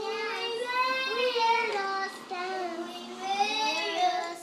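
A young girl singing in long, held notes that slide up and down in pitch, with a short break about two seconds in.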